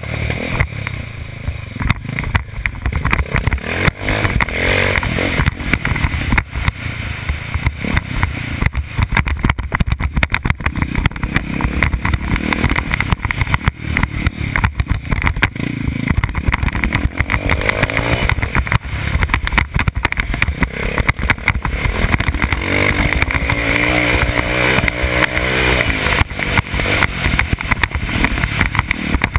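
Dirt bike engine running hard and revving up and down as the rider works along the track, with constant wind buffeting and knocks on the on-board microphone.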